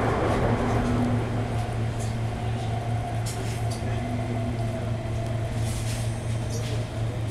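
Commuter train heard from inside the carriage: a steady low hum with a faint whine above it and light rattles and clicks. A louder rushing noise dies down in the first second.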